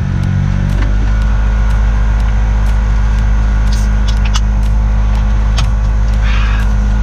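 Steady low drone of a BMW X1 running, heard from the dashboard inside its cabin, with a few light clicks.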